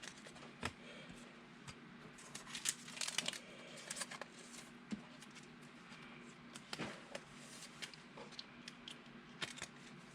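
Faint handling of trading cards: cards sliding and tapping against one another and the table, with scattered light clicks and short rustles.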